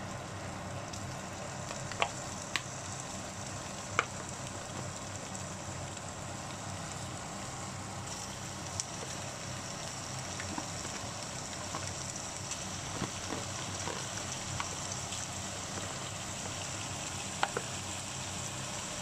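Partly frozen pork chunks frying in oil in a nonstick pan: a steady sizzle, with a few sharp clicks and knocks as more pieces drop into the pan.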